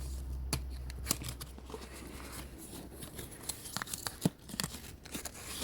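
Paper and plastic packaging rustling and crinkling as it is handled, with scattered small clicks and taps, over a low hum that stops about halfway through.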